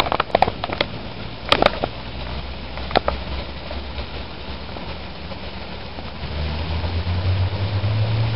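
Heavy rain with large drops falling, and sharp taps of single drops hitting close by several times. About six seconds in, a car engine's low hum comes in and grows louder.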